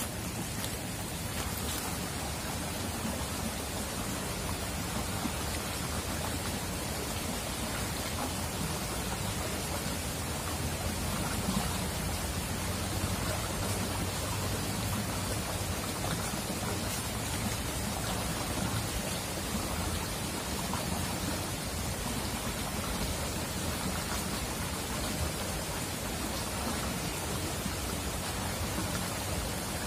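Shallow river flowing over rocks: a steady rushing, babbling noise of water.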